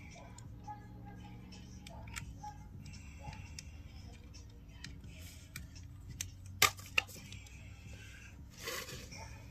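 Light clicks and taps of small metal parts and hand tools being handled during pump reassembly, with two sharp clicks close together a little past the middle and a brief scrape near the end, over a steady low hum.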